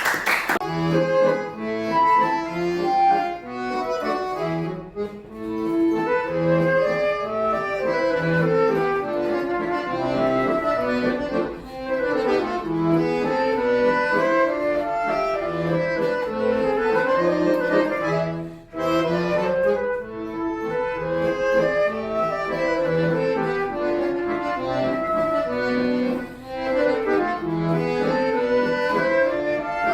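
Accordion playing a piece, with regular bass notes under a moving melody; it starts right after a short silence.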